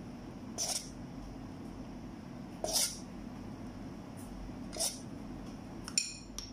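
A metal spoon scraping cake batter in a stainless-steel mixing bowl, three short scrapes about two seconds apart, then a sharp metallic clink with a brief ring near the end.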